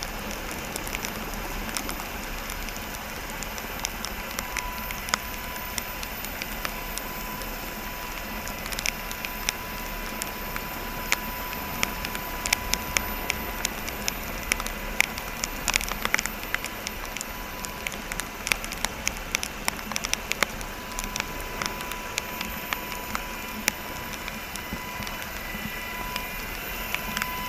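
Black Hawk helicopter hovering, heard as a steady rushing noise with frequent crackles and clicks and a faint steady whine that drops away in the middle and comes back.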